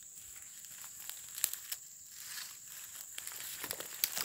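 Footsteps crunching and crackling through dry leaf litter and dead palm fronds, in irregular steps, over a steady high-pitched insect drone.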